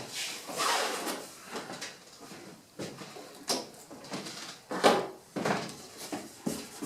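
Cardboard packaging being handled and opened: a few knocks and scrapes of cardboard with rustling in between, the loudest near the middle and again about five seconds in.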